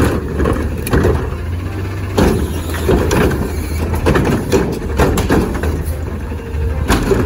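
Truck engine idling, a steady low rumble with an uneven pulsing over it.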